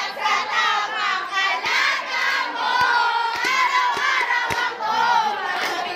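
A group of teenage students singing together to a strummed acoustic guitar, with a few short sharp thumps in the middle.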